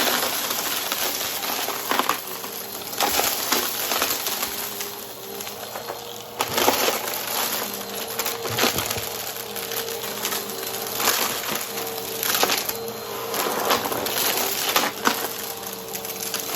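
Vacuum cleaner with a spinning brushroll sucking up crunchy debris: an irregular run of crackling and sharp snapping over a faint steady motor hum.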